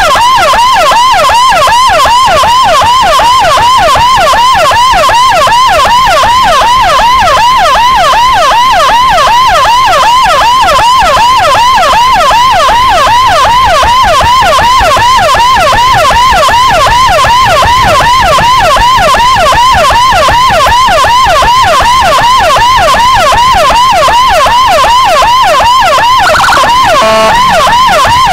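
Escort motorcycle's electronic siren sounding a fast yelp, a rapid rising-and-falling wail repeating several times a second without a break. About a second and a half before the end, a brief separate falling tone cuts across it.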